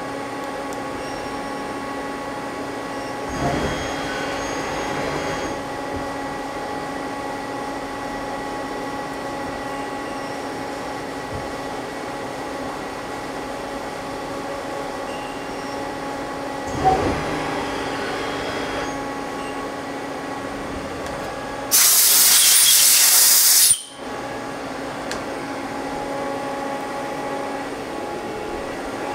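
Mazak CNC lathe running a tapping cycle with a floating tap holder: a steady machine hum with several fixed tones, swelling briefly around 3 s in and again around 17 s in. About 22 s in, a loud hiss lasts about two seconds and cuts off sharply.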